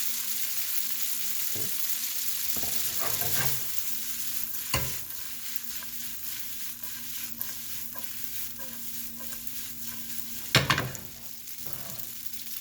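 Garlic noodles with ginger and green onions sizzling in a hot pan while being stirred and tossed with a utensil. There are scattered light clinks and a knock of the utensil on the pan about five seconds in, and a louder clatter about ten and a half seconds in.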